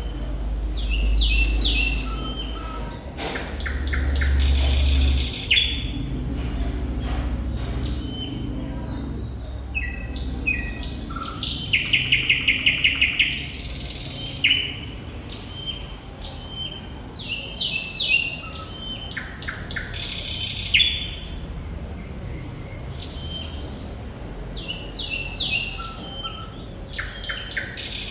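Thrush nightingale singing a continuous, varied song of short whistled and buzzy phrases, with a fast run of about five repeated notes a second roughly halfway through.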